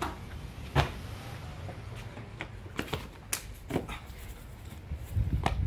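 Scattered sharp footfalls and landing impacts of a person running and jumping, the loudest about a second in, over a low rumble.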